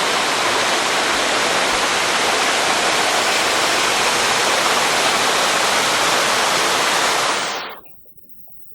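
Steady rush of water falling down a 22 m waterfall, which fades out quickly near the end.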